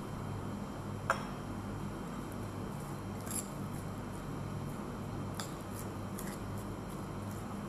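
Metal spoon clinking and scraping against a glass mixing bowl as shredded cabbage is stirred: one sharp clink about a second in, then lighter scattered ticks. A steady low hum runs underneath.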